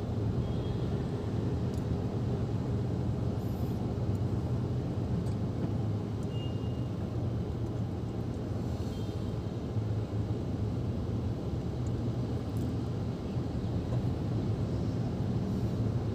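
Steady low rumble inside a car cabin, typical of the car's engine idling while it stands still.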